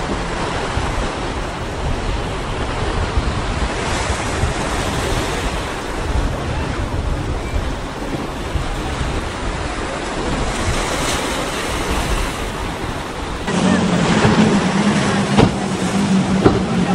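Wind and choppy sea water washing as a motor yacht cruises past. About three-quarters of the way in, a steady drone comes in suddenly and stays: the outboard engines of a center-console boat running fast.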